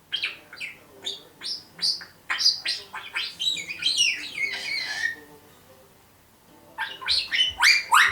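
African grey parrot calling in a quick series of short rising chirps and squawks, running into a warbling stretch about three seconds in. After a short pause, a fresh fast run of rising calls starts near the end.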